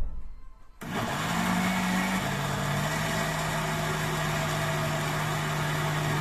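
A brief knock as the lid is pressed onto a countertop glass-jar blender, then its motor starts about a second in and runs steadily, puréeing boiled carrots, cauliflower and raw eggs. The motor hum drops slightly in pitch a second or so after starting and holds steady.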